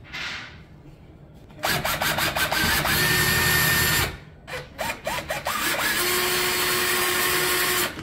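Black+Decker drill driving screws through a door lever's mounting plate into the door, in two runs. Each run starts with a few short trigger pulses, the motor whine rising each time, then runs steadily. The first run stops about four seconds in and the second just before the end.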